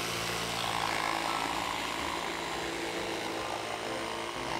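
Milwaukee M18 FUEL brushless cordless jigsaw running steadily as it cuts a straight line through a wooden board along a clamped straightedge. It is set to orbital setting 3, the fastest, most aggressive cutting stroke.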